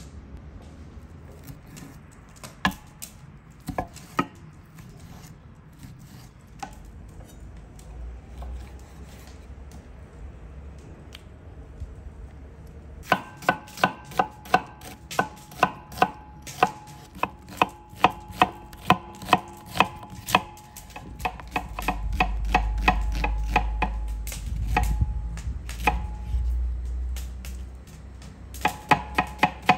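Kitchen knife chopping food on a cutting board: a few scattered knocks at first, then a fast, steady run of strokes, about three a second, from roughly halfway in. A low rumble comes in the middle, and the chopping picks up again near the end.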